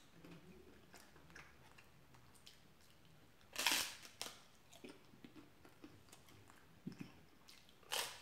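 A paper-thin, crunchy wafer snapping as it is bitten: a sharp crunch about three and a half seconds in and another near the end, with soft chewing between.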